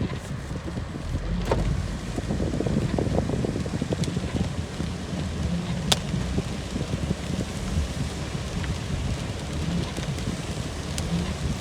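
Thunderstorm rain falling with a steady low rumble, and a few sharp ticks of drops striking close by.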